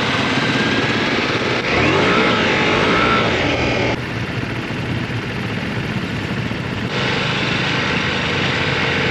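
Motorcycle engine running under way, with a rise in pitch about two seconds in. The sound changes abruptly twice, at about 4 s and about 7 s, as if short stretches of riding were cut together.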